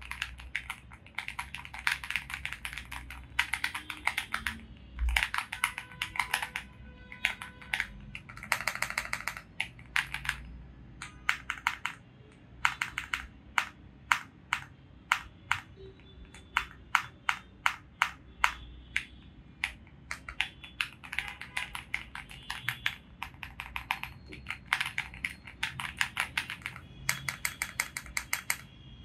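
Typing on a Xinmeng M75 mechanical keyboard: fast runs of key clicks alternating with slower, evenly spaced single key presses.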